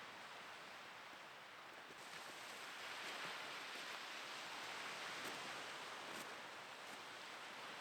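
Faint outdoor ambience: a soft rushing noise that swells from about two seconds in and eases near the end, with a few faint ticks.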